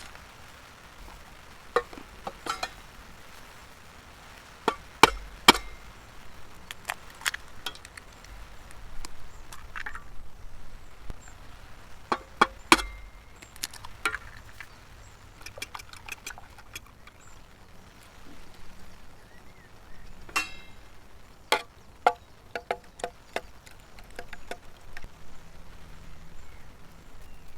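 Camp cooking preparation: scattered sharp knocks, taps and clinks of utensils and cookware being handled, some in quick runs of several, with the loudest strikes around five and twelve seconds in.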